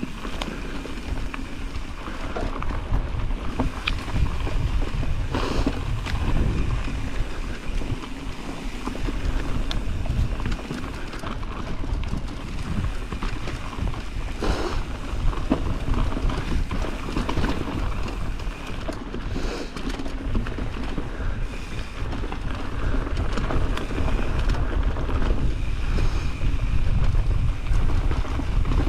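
Mountain bike rolling fast down a loose dirt trail: wind rushing over the microphone over a steady rumble from the tyres, with a few sharp knocks as the bike hits bumps.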